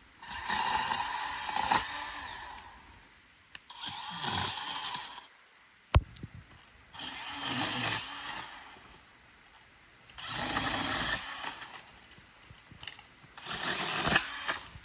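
DeWalt cordless pole saw cutting through branches in five short bursts of about two seconds each, the motor stopping between cuts. There is one sharp crack about six seconds in.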